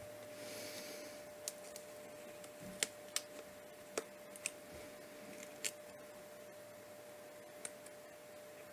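Faint scattered clicks and light rustling of card pieces and sticky embellishments being handled and pressed onto a greetings card, over a faint steady hum.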